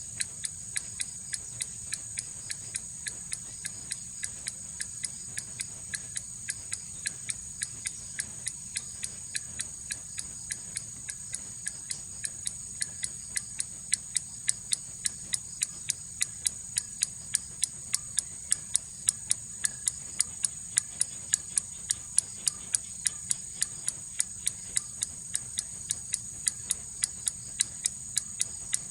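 Swing-style pendulum clock ticking steadily, nearly three ticks a second. The ticks grow louder from about halfway through.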